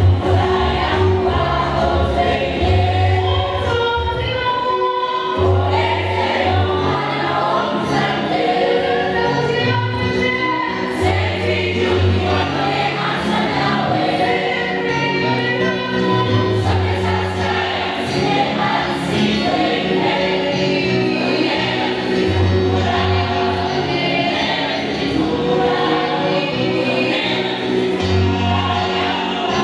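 A girls' school choir singing together in many voices, with hand-clapping and a steady low bass line underneath.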